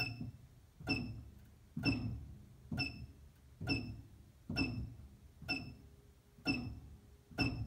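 Chinese CNC laser cutter being jogged along its Y axis in single 0.1 mm steps, nine times at about one a second: each step is a short electronic beep with a click and a low thud, during a test of the axis for backlash.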